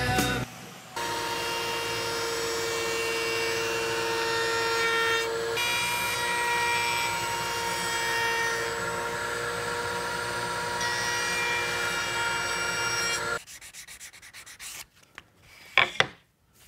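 A router table runs, chamfering the edge of a walnut board fed past the bit: a steady motor whine with cutting noise, which cuts off abruptly. Near the end come two sharp wooden knocks.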